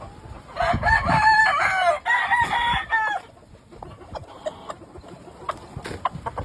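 A gamefowl rooster crows once, a loud call of about two and a half seconds in stepped pitches, starting about half a second in. Faint short clicks follow.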